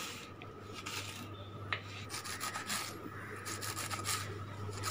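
Kitchen knife chopping red amaranth stems and leaves finely on a wooden cutting board: a quick run of short, crisp cuts and scraping strokes against the wood.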